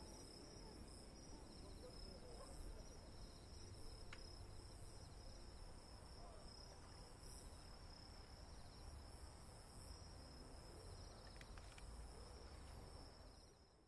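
Faint night ambience: a steady high-pitched trill of night insects with bursts of rapid chirping, over a faint low rumble, fading out near the end.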